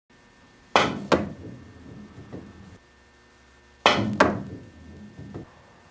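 Two pool shots: each is a crisp click of a very soft Ultraskin cue tip striking the cue ball, followed about half a second later by a second knock as the ball hits the cushion. The first shot comes just under a second in, the second about four seconds in.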